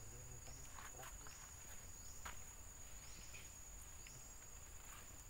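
Forest insects: a steady high-pitched drone with short rising chirps repeating about twice a second, plus a few faint clicks.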